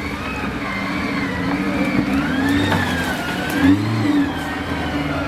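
Off-road vehicle's engine revving up and down under load, its pitch rising and falling repeatedly, with a short sharp rev a little before the end.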